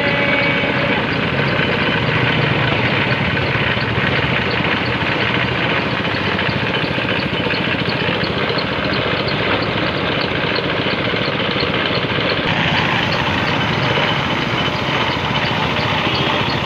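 Paint spray gun hissing steadily as it sprays the engine bay, over the steady running of the air compressor feeding it, with a regular fast ticking throughout.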